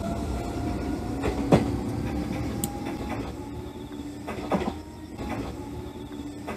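N-gauge model of the Meitetsu 8800 series Panorama DX train running along the layout track, its motor whine and running noise fading as it moves away, with a few sharp clicks from the wheels on the track.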